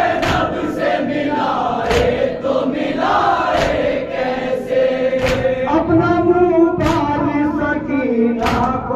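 A group of men chanting an Urdu noha (mourning lament) in chorus behind a lead voice on a microphone, over sharp unison chest-beats (matam) about every second and a half.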